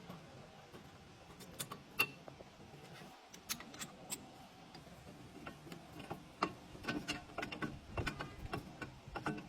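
Irregular sharp clicks and taps, a few at a time at first, then coming quickly and thickly over the last few seconds, some of them ringing briefly.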